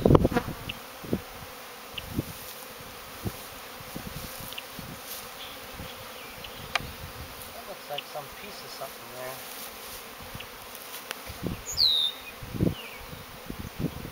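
Honey bees buzzing in a steady hum around open hives. A few short knocks and taps are scattered through it.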